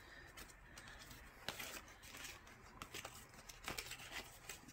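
Faint rustling and a few soft taps of cardstock pieces being handled and fitted together by hand.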